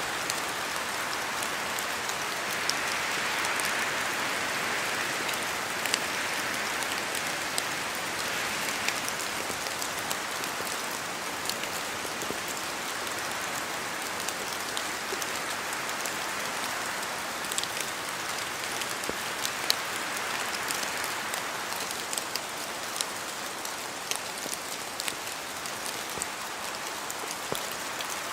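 Steady rain falling in a spruce forest, a dense hiss with scattered sharp taps of heavier drops falling from the trees. The hiss swells a little in the first few seconds, as wind moving through the branches.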